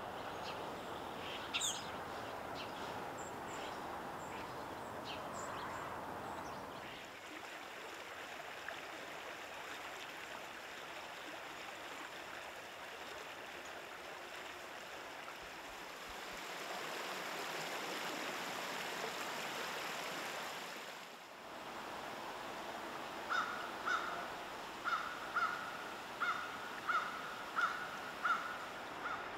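Steady rush of river water that changes character twice, with a few faint bird chirps. Near the end a bird gives a run of about ten short calls, roughly two a second.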